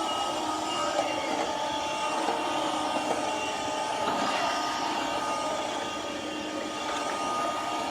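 Vacuum cleaner motor running steadily: a continuous airflow rush with a few constant whining tones.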